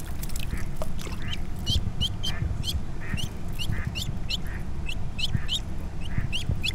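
Duckling peeping over and over, about two short high-pitched peeps a second. These are distress calls from a duckling caught on a fishing lure's hook while the hook is worked free.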